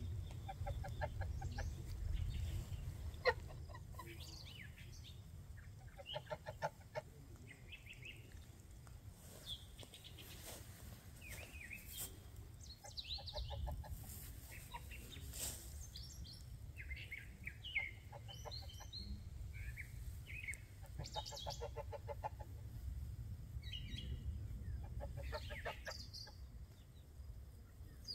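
Chickens clucking in short, rapidly pulsed calls every few seconds, with small wild birds chirping at a higher pitch, over a low steady rumble.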